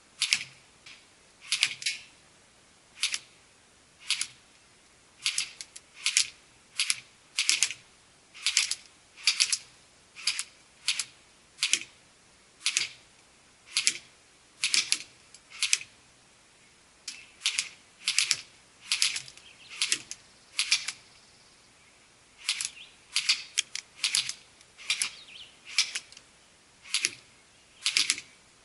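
Airsoft AK-47 rifle firing single shots: sharp, high-pitched snaps, each cut short, coming every half second to a second, sometimes two in quick succession.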